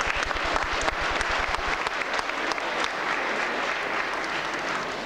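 Audience applauding, many hands clapping together, the clapping thinning out near the end.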